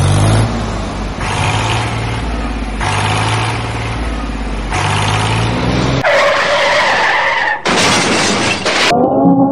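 Mini tractor's small engine running steadily with a low hum, heard across several short clips; about six seconds in it gives way to a harsher, hissing noise as the tractor churns through muddy water, and music starts near the end.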